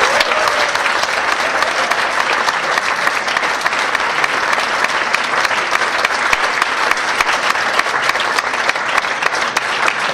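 Audience applauding: many hands clapping in a dense, steady stream of claps.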